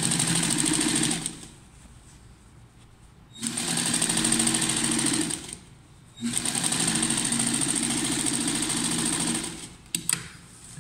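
Industrial lockstitch sewing machine stitching a sleeve seam in three runs of a few seconds each, stopping briefly between them. A few light clicks near the end.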